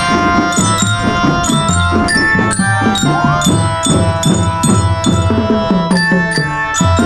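School drum band playing a tune: drums beating in a steady rhythm under a sustained, stepwise melody.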